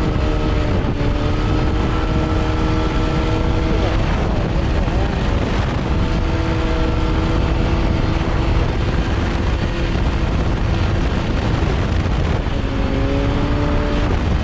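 Small off-road vehicle engine running at steady revs while riding through snow, its note dipping and shifting pitch a few times, with heavy wind rumble on the microphone.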